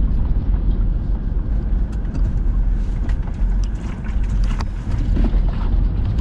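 Off-road vehicle driving up a rough dirt trail climb: steady low engine and tyre rumble, with a few sharp knocks from rocks or rattles, three of them spread through the middle.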